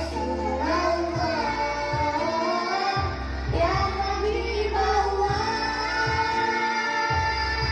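Children's choir singing together over a backing track with a steady beat.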